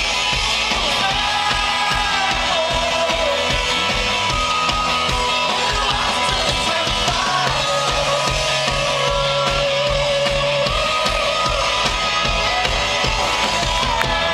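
Live rock band playing through a PA: electric guitars over a steady drum beat, heard from the crowd.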